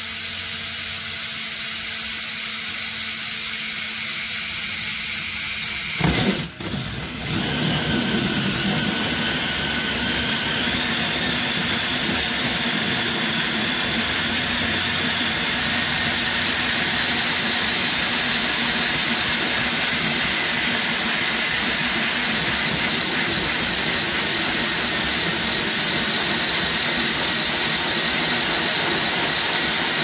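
Power drill spinning a 2-inch hole saw through the sheet-metal top of an old refrigerator: a steady, loud whir with the grinding of the saw cutting. It stops briefly about six seconds in, then runs on steadily.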